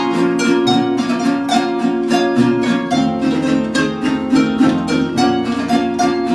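A large wooden folk harp and a small guitar playing together: a quick, even stream of plucked harp notes over strummed chords and a steady plucked bass line.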